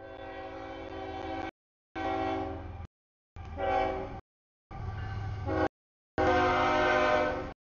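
CSX freight locomotive horn sounding a series of blasts for a grade crossing as the train approaches: five blasts with short breaks between them, the last one the longest and loudest, with a low rumble underneath.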